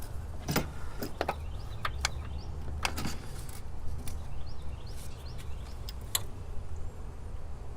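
Scattered clicks and light knocks of a battery cable and its clips being handled and fed through a car's engine bay, over a low steady hum.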